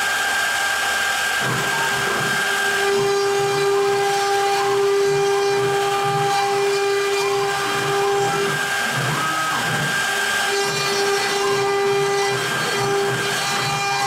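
CNC router spindle running steadily while its V-bit engraves into an oak board, a high whine with the rough noise of the cut beneath it.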